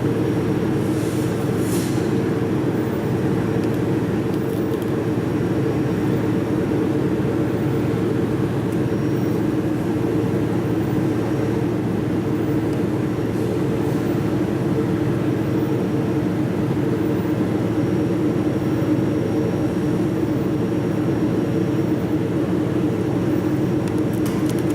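Steady low mechanical hum of a running machine, unchanging throughout, with a few faint light ticks about a second in and again near the end.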